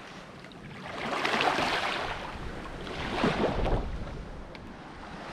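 Small waves lapping and washing onto a sandy shore, swelling twice, with some wind on the microphone.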